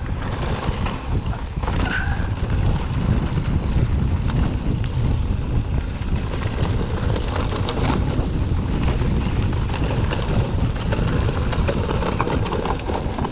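Canyon Neuron full-suspension mountain bike being ridden fast downhill: a steady rush of wind buffeting the microphone over tyre roar, with frequent small rattles and knocks as the bike runs over rough trail.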